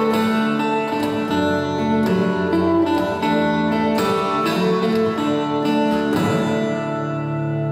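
Steel-string acoustic guitar playing plucked notes and strums, with a strong strum about six seconds in that is left to ring out as a sustained chord.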